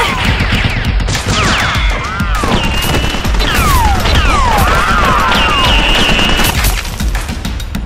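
Dubbed automatic-gunfire sound effect: a rapid, unbroken stream of shots with whining whistles that sweep down in pitch every second or two.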